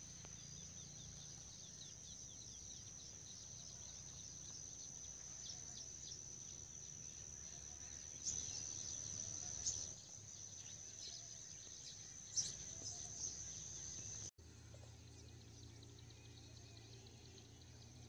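Insects droning outdoors on one steady high note over a low rumble, with a few soft knocks. The sound drops abruptly about fourteen seconds in, and the drone carries on fainter.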